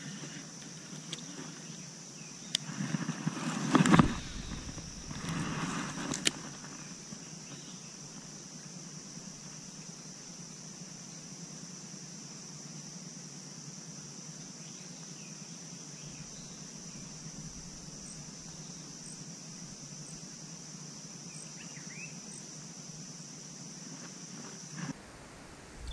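A steady, high-pitched insect drone from the swamp that cuts off near the end, with a louder rushing swell about three to four seconds in, as a baitcasting rod is cast and the reel spool runs out, and a second, softer rustle a couple of seconds later.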